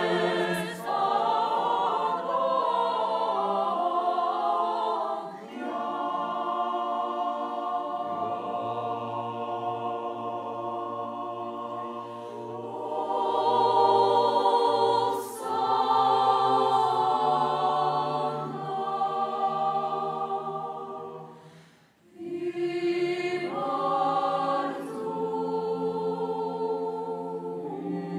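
A mixed choir of women's and men's voices singing unaccompanied in slow, sustained chords, with a low note held under the upper voices through the middle of the phrase. The singing breaks off briefly about three quarters of the way through and then starts a new phrase.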